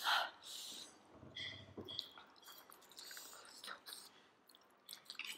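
Chewing of steamed momo dumplings, soft and moist, with scattered small clicks.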